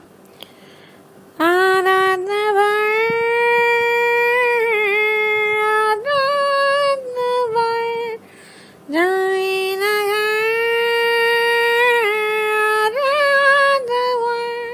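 A woman singing long, held high notes without clear words, each note sliding up into place, in two phrases with a short break about eight seconds in.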